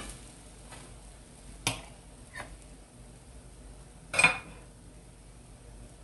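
Metal utensil tapping against French toast and a flat griddle (tawa) while butter is spread on it: a few light clicks, then a louder ringing metal clink about four seconds in, with faint frying sizzle underneath.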